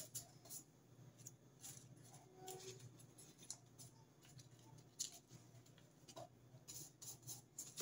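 Near silence, with faint scattered soft taps and rustles of a glue brush and bread-bag paper being pressed onto a cardboard sled.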